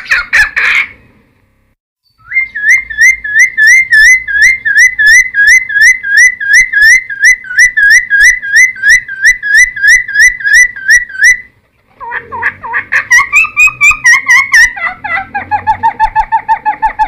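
Cucak timor (a friarbird kept as a songbird) singing loudly. After a brief pause it gives a long run of quick, identical whistled notes, about four a second, for some nine seconds. A short break follows, then a more varied phrase that ends in a series of lower notes.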